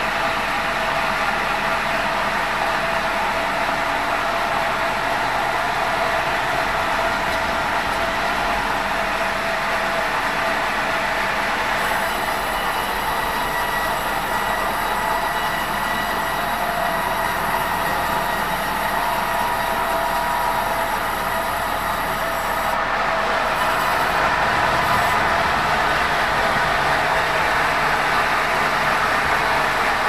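Sawmill band saw running steadily and cutting lengthwise through a large meranti log on a rail-mounted log carriage, with a constant whine over the cutting noise.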